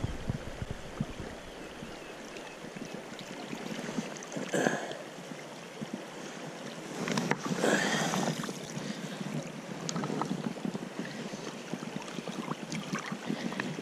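River water rushing steadily. A hooked brown trout splashes at the surface in two bouts, once about four and a half seconds in and again about seven to eight seconds in, as it is played and netted.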